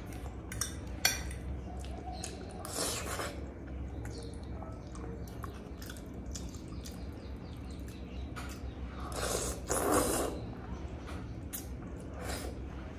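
Close-up mouth sounds of eating thukpa noodle soup: wet chewing, with two longer slurps, about three seconds in and about nine to ten seconds in. A few sharp clicks of cutlery come in the first second or so.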